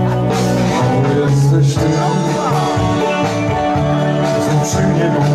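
Upbeat dance music with a steady bass beat and a singing voice.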